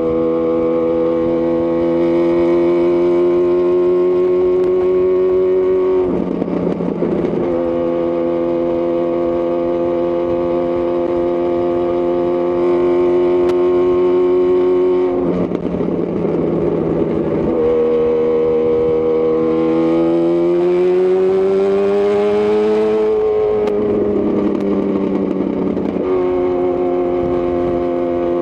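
2018 Honda CB1000R's inline-four engine through a Lextek CP1 full exhaust, running at steady revs on the move, with its note rising once about two-thirds of the way through. Three times the even note breaks up into a rough, uneven stretch lasting a second or two before it settles again.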